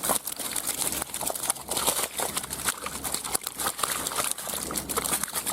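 Irregular crinkling and rustling handling noise with many small clicks and taps, as the catch of crucian carp and carp is shown.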